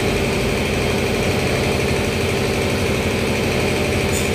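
A motor running steadily, a constant machine hum that does not change in pitch or level.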